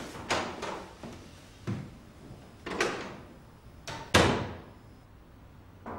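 A few footsteps, then a wooden door being handled: clicks and knocks, and one loud thud about four seconds in as it shuts.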